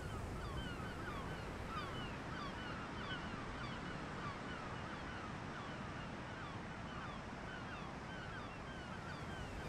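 A flock of gulls calling: many short sliding calls overlap and repeat throughout, over a steady low rush of surf and wind.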